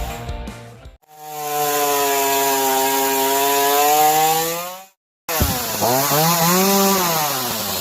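Ryobi RY3716 37 cc two-stroke gas chainsaw running at high revs in two short clips. The first is a steady high-rev run that stops abruptly; after a brief gap, the second revs up and back down.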